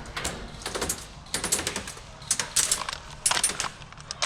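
Airsoft guns firing in several short bursts of rapid, sharp clicks.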